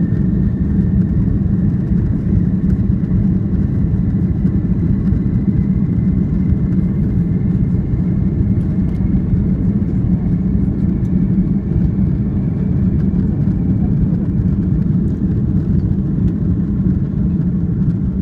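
Cabin noise of an Airbus A340-600 on its take-off roll, heard from a seat over the wing: a loud, steady noise from the engines at take-off power. A thin whine rises slowly in pitch over the first dozen or so seconds.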